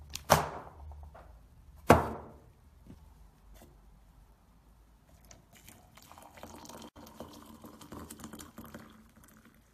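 Two sharp clinks of tea things set down on a wooden table, about a second and a half apart, each ringing briefly; then softer clinking and a trickle of liquid.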